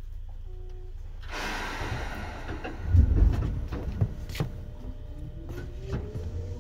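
Seibu 2000 series electric train at a stop, heard from inside a motor car: a sudden air hiss about a second in, then heavy thuds and two sharp clunks. Near the end a motor whine starts to rise in pitch as the train begins to pull away.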